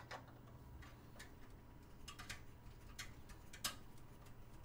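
Faint, irregular clicks and ticks of a stubborn screw being worked on a computer case, over a steady low hum.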